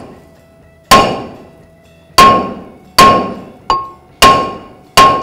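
Hammer striking the corroded front brake rotor of a 2012 Ford Escape, six blows about a second apart, one of them lighter, each leaving a metallic ring. The rotor is rusted onto the hub and does not come free.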